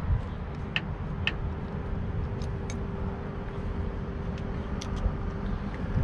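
Scattered light clicks and ticks of bolts and a hand tool on the metal latch mechanism of a skid steer's glass door, over a steady low rumble with a faint steady hum.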